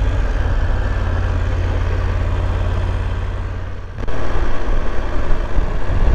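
BMW F850GS motorcycle's parallel-twin engine running as the bike rides along, with a steady low rumble. About four seconds in the sound dips briefly, then comes back louder.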